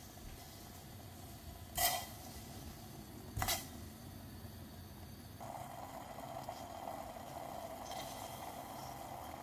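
Garlic and ginger pieces dropped into a stainless-steel saucepan of dark cooking liquid, two short splashes about two and three and a half seconds in. From about halfway a steady faint hiss sets in.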